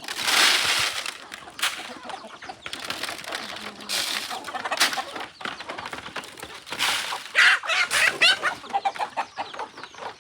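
A flock of free-range chickens clucking and calling, mixed with several short bursts of rustling noise.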